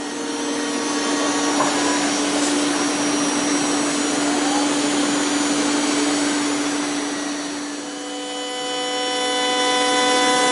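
Split-system (HVAC) vacuum pump holding the workpiece down on a CNC vacuum table, running with a steady hum and hiss. About eight seconds in, a steady whine with several tones joins in.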